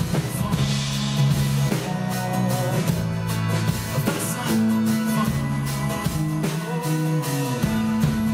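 Live band playing a song: acoustic guitar strummed over electric bass and drum kit, with a man singing held notes into the microphone.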